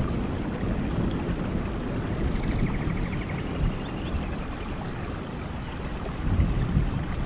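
Heavy rain falling on a waterlogged street, with car traffic driving through standing water and tyres hissing on the wet road.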